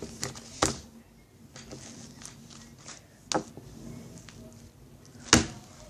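Slime being stretched and worked by hand to blow a bubble, giving a few sharp sticky clicks and pops, the loudest near the end.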